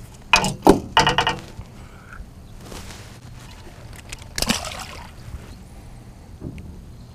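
Water splashing in a few quick, loud bursts in the first second and a half, then one more splash about four and a half seconds in, as a just-landed rainbow trout is handled in the water at the boat.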